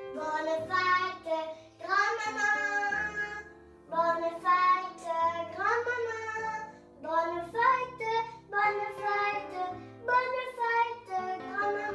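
A young boy singing, with steady held notes of soft background music underneath.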